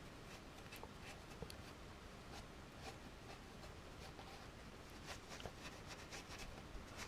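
Faint, irregular scratching of wire wool scrubbing old grease off a steel motorcycle stand, the strokes coming thicker in the second half.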